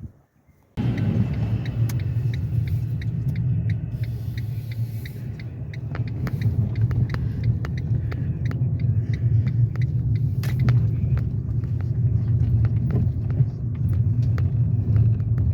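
Car driving on the road, heard from inside: a steady low rumble of engine and road noise that starts suddenly about a second in. Over the first few seconds a regular ticking runs at about three ticks a second.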